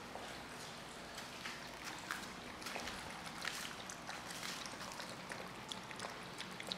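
Several month-old Šarplaninac puppies eating dry kibble from a round feeding pan: irregular small clicks and crunches.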